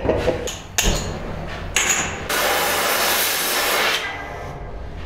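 Gas torch flame rushing and hissing while it heats a piece of steel angle held in a vise: two short bursts, then a steady hiss for about two seconds that dies away.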